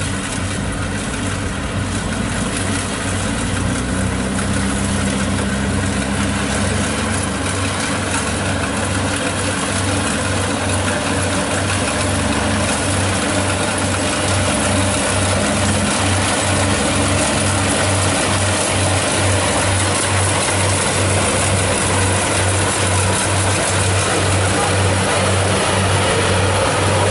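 Kubota rice combine harvester's diesel engine running under load as it cuts rice, a steady hum with a regular low throb, growing gradually louder as the machine comes closer.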